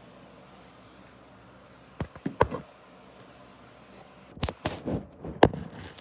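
Two short clusters of clicks and knocks, about two seconds in and again near the end, over a faint steady background.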